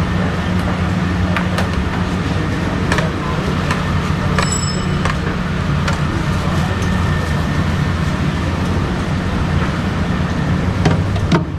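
A steady low mechanical hum with a few light clicks and clinks scattered through it.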